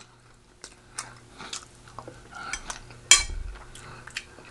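Close-miked eating sounds: chewing, with small clicks of cutlery against a plate or dish, and one sharper clink with a low thud about three seconds in.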